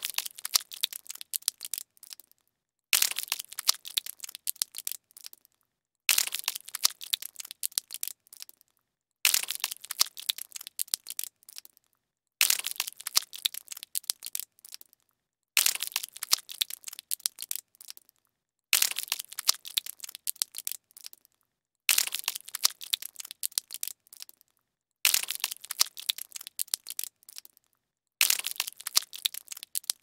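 Gory blood-and-guts spill sound effect: a sudden burst of crackling that dies away over about two seconds. It is repeated about ten times, roughly every three seconds, with a short silence between.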